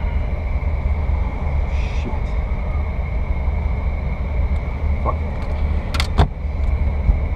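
Steady low rumble of a vehicle's engine and road noise heard from inside the cabin, with a faint steady high tone and two sharp clicks about six seconds in.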